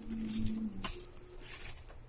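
Keyboard keys being pressed: a quick, irregular run of light clicks. A brief low steady tone sounds under the clicks in the first half.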